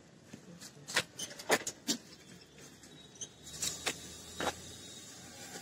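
Several short, sharp clicks and knocks at irregular intervals.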